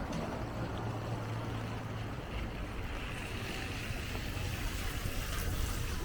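Wind rumbling on the microphone over a steady hiss of outdoor noise.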